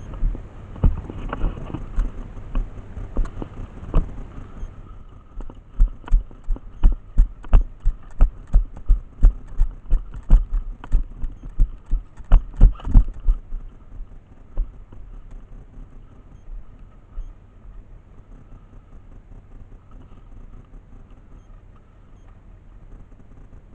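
Footsteps thudding through a player-worn camera: a few uneven knocks, then a run of heavy, evenly spaced steps, about two a second, that stops a little past the middle, leaving a quieter rustle.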